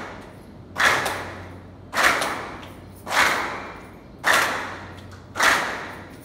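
Forceful exhalations repeated in a steady rhythm, about one a second. Each is a sharp rush of breath noise that fades quickly, as in a yoga breathing exercise.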